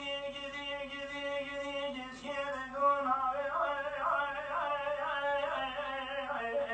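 A man singing in the Kurdish dengbêj style: a note held for about two seconds, then a run of wavering, ornamented notes.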